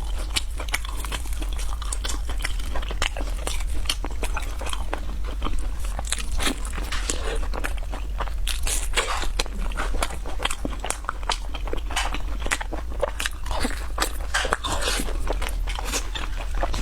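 Close-miked crunching and chewing of crisp fried snacks: a dense, continuous run of sharp crunches, several each second.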